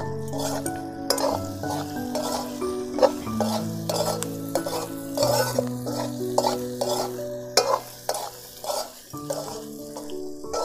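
A metal spoon stirs and scrapes frying pork with fermented fish paste in a metal wok, with repeated scrapes and clinks against the pan over a steady sizzle.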